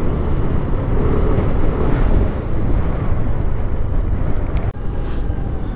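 Wind rushing over the microphone of a moving motorcycle, with the engine running underneath: a loud, steady roar of noise.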